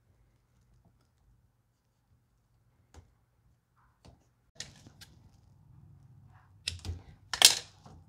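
Fingers working vinyl electrical tape onto a front-load washer's rubber door boot seal. It is nearly quiet at first, then come small clicks and rubbing, with two louder, sharp scrapes of tape and rubber near the end.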